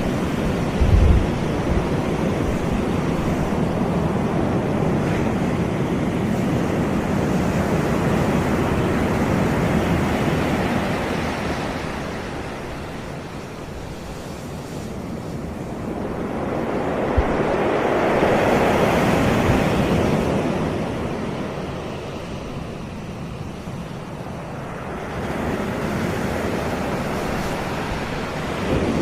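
Caribbean sea surf washing onto a beach in a continuous hiss that swells and ebbs. The surf is loudest as a bigger wave breaks about two-thirds of the way through. There is a brief low thump about a second in.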